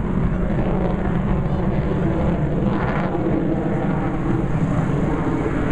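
Aircraft engine noise from overhead: a steady, loud, low rumble.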